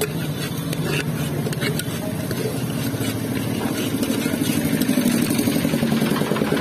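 A motor vehicle engine running, its pitch slowly rising and its level growing. A few light knife scrapes against a steel pot sound about a second in.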